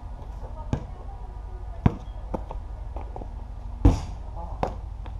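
A basketball thudding on a paved patio several times at uneven intervals. The loudest hit comes about four seconds in, as the shot strikes the hoop's backboard and rim.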